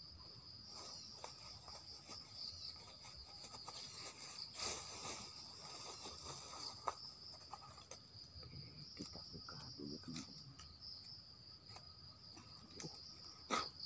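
Insects drone steadily at a high pitch. Scattered soft clicks and rustles come from dry bamboo leaves and sticks being handled, with sharper snaps about seven seconds in and near the end.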